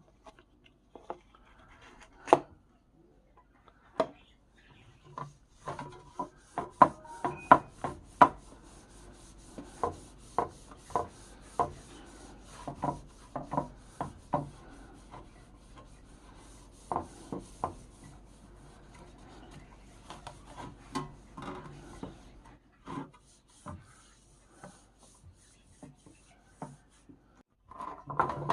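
Scraping and rubbing on wood, broken by many irregular sharp knocks.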